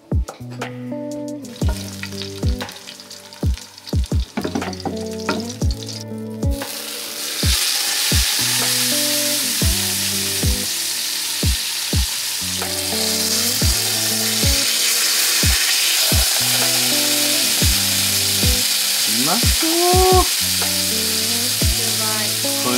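A whole sea bream sizzling steadily in hot oil in a frying pan, the frying starting about six seconds in, under background music with plucked notes.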